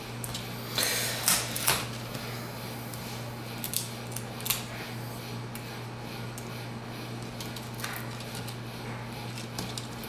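Fingers handling the opened tablet's parts and wiring: a short rustle about a second in, then scattered light clicks and taps, over a steady low hum.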